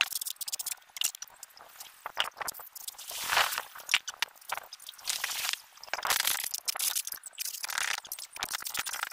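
Trowel scraping and crunching through a semi-dry sand-cement mortar bed as it is spread out, in irregular short strokes.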